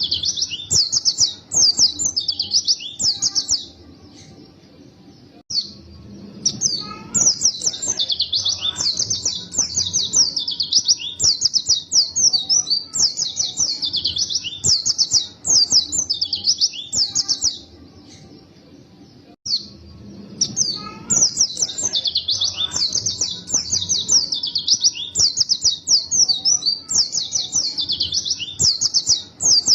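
White-eye (pleci) singing a long, fast twittering song of high chirps, breaking off briefly twice, about four seconds in and again near eighteen seconds.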